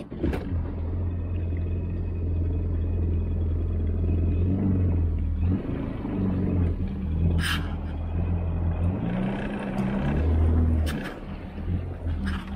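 Yamaha GP1800R WaveRunner's four-cylinder four-stroke engine running at low speed on the water. Its note rises and falls with the throttle twice, then dips near the end, with a few brief sharp knocks.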